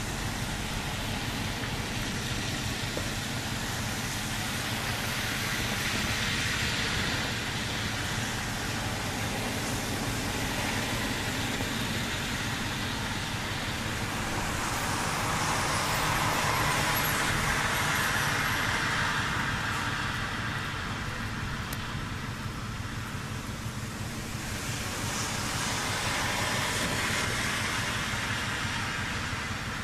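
Street traffic on a wet, snow-covered road: a steady hiss that swells and fades three times as vehicles pass, their tyres hissing through the slush.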